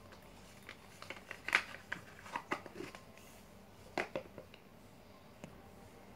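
Clear slime being squeezed and poked by hand, giving a run of small irregular pops and clicks, the loudest about a second and a half in and again about four seconds in.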